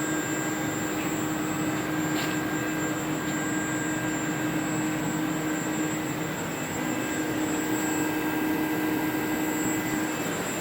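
Steady machinery running: an even mechanical whirring with a constant low hum and a thin high whine, unchanging throughout.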